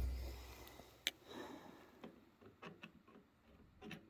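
A low thud dying away at the start, then a handful of faint, scattered clicks and taps from handling a chainsaw while its bar tensioner is being adjusted.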